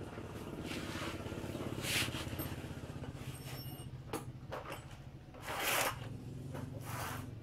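An engine running steadily at idle, with a few short hissing noises.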